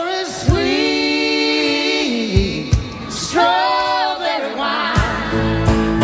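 Live band ending a slow country-soul song: voices hold long harmony notes over sparse backing, twice, then the full band with drums and horns comes in about five seconds in.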